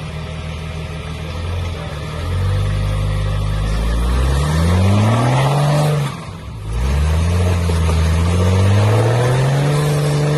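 Rock-crawling Jeep Wrangler's engine under load, climbing a rock ledge: low and steady at first, then revving up with rising pitch, backing off briefly about six seconds in, and revving up again.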